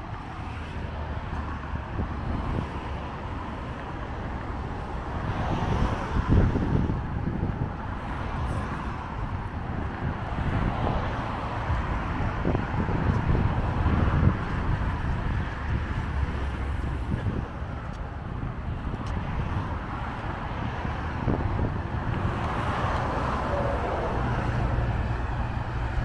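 Steady road traffic noise, cars passing on a multi-lane road, swelling louder a few times as vehicles go by.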